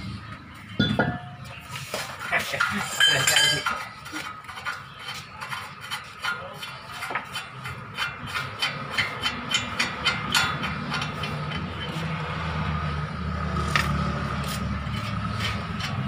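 Metal clicking and clinking of a hand tool working on the brake assembly behind a Toyota Fortuner's wheel hub, a run of sharp ticks about two or three a second through the middle. A low steady hum comes in about three-quarters of the way through.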